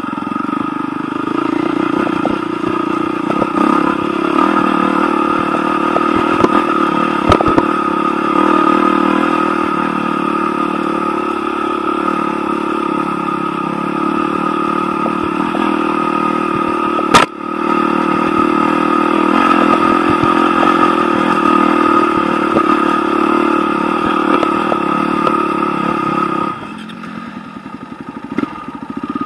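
Enduro dirt bike engine running at a steady pace while riding a rough trail, with small knocks from the ground. There is one sharp knock a little past halfway. Near the end the engine drops to a quieter, lower note as the bike slows.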